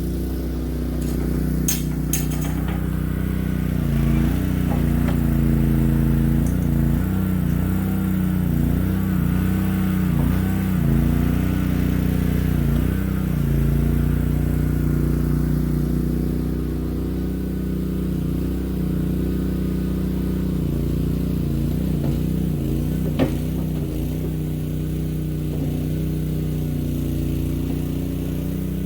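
Boxer 320 mini skid steer engine running steadily, its note dipping and recovering again and again through the middle stretch as it works. A single sharp knock about 23 seconds in.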